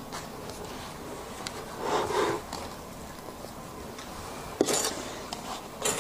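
Close-miked eating sounds: soft, wet chewing of mousse cake, with a couple of sharp clicks of cutlery, one past the middle and one near the end.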